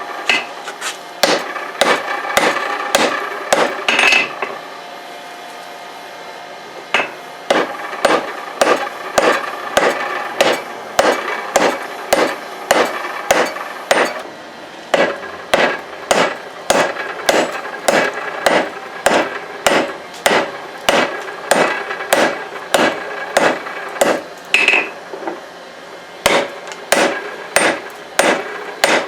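Hand hammer striking hot leaf-spring steel on an anvil, about two blows a second, flattening the bar before it is drawn out. The anvil rings between blows. The hammering stops for a couple of seconds about five seconds in.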